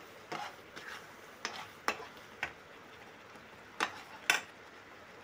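Metal spatula stirring a thick khoya, milk and sugar mixture in a steel pan, with irregular scrapes and clinks against the pan about every half second.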